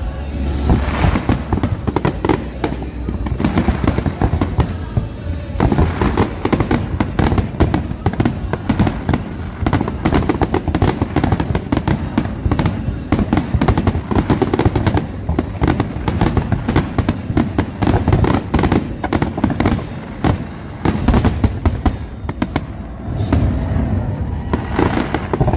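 Aerial fireworks going off in a dense, rapid barrage of bangs and crackling, almost without a break.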